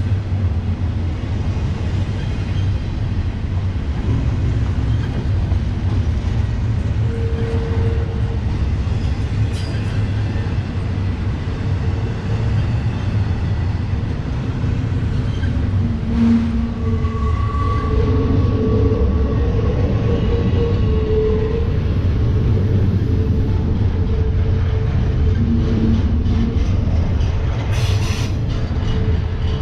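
Double-stack intermodal freight train's loaded well cars rolling past: a steady rumble of steel wheels on rail, with thin squealing tones from the wheels coming and going in the middle.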